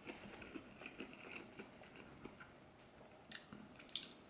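Faint chewing of a breaded fried chicken piece, with small wet mouth clicks and a brief sharp smack near the end.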